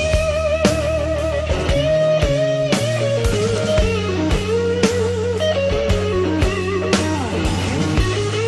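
Rock music with electric guitar and drums: a lead guitar line with bends and vibrato over a steady drum beat and bass.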